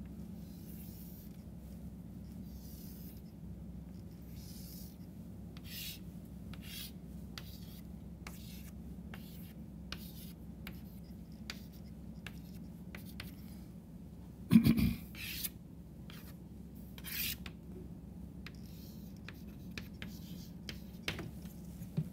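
Chalk drawing on a chalkboard: short scratchy strokes and taps of chalk in a run of separate lines. There is one louder thump about two-thirds of the way through, all over a steady low hum.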